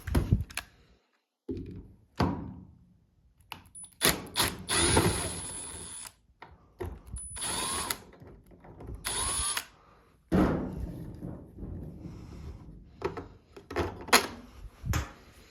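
Power drill-driver backing out a long star-head (Torx) screw from behind a GE dryer's selector knob, whirring in three short bursts with a brief rising whine as each one starts. Clunks of the tool and screw against the dryer's panel come in between.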